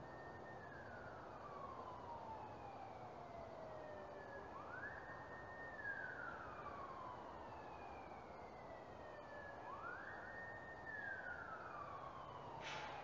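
A faint siren wailing in three slow cycles. Each one rises quickly, holds a high note for about half a second, then slides slowly down over three or four seconds.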